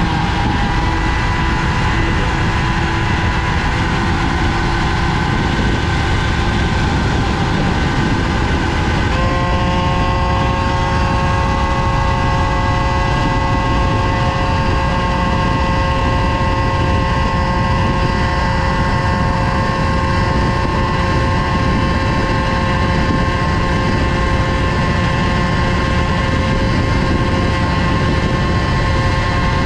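Tuned two-stroke moped engine with a Polini cylinder kit and BOOST cylinder head, running flat out at a steady high-revving note. Its pitch steps up about nine seconds in and then holds. Heavy wind rumble from riding at speed runs underneath.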